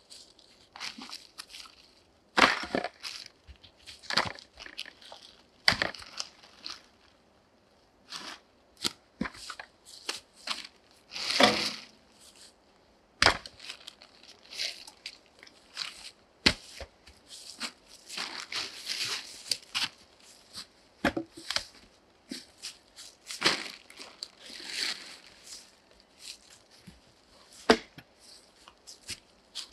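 Irregular knocks and clatters of birch logs being handled and stacked on a woodpile, mixed with the crinkling and rustling of a plastic tarp being pulled over the pile.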